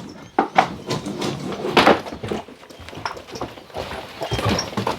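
Irregular knocks and taps, several sharp ones in the first two seconds, over a low background rumble.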